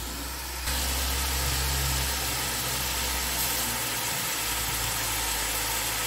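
Steady low machine hum with a hiss over it, which comes in suddenly under a second in and holds steady.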